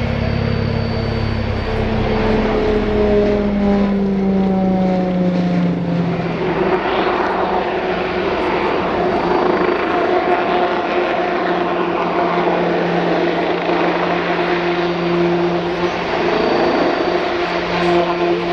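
Eurocopter X3 compound helicopter flying by, its five-bladed main rotor and two side-mounted propellers driven by twin RTM322 turboshaft engines. A loud, steady hum of several tones falls in pitch over the first six seconds as it passes, then holds steady.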